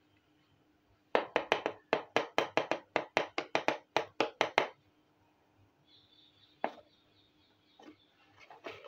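Rapid, evenly spaced sharp clicks of a small plastic toy handled by hand, about five a second for three and a half seconds. A few softer clicks and rustles follow near the end.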